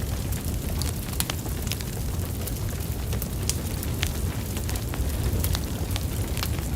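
Fire in a fireplace crackling, with frequent sharp irregular pops over a steady low rumble of the flames.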